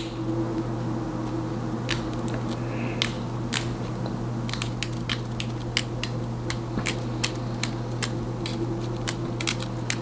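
Small hair shears snipping through a wig's HD lace in a zigzag cut along the hairline: many quick, sharp snips at an irregular pace, over a steady low hum.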